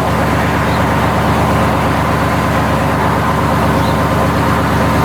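A car running: a steady, loud rumble with a constant hum on top.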